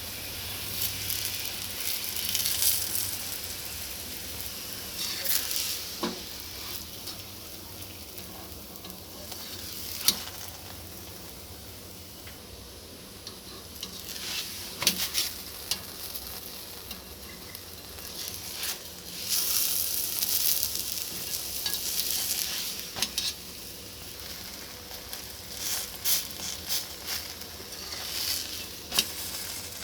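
Aloo paratha frying in a hot pan, a steady sizzle that swells for a few seconds a little past the middle, with a few sharp taps and scrapes of a spatula.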